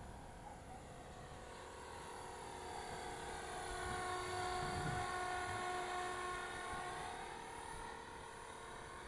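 Radio-controlled model helicopter flying past, its motor and rotors giving a whine of several pitched tones that grows louder towards the middle and then fades.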